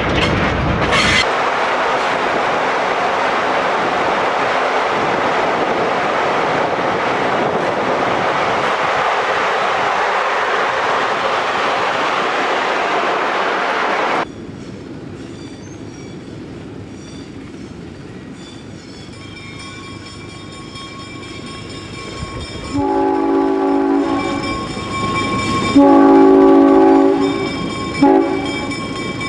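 A train horn sounds several blasts of a steady chord in the last several seconds. Before that, an even rushing noise runs for the first half and cuts off suddenly about 14 seconds in, leaving a quieter stretch.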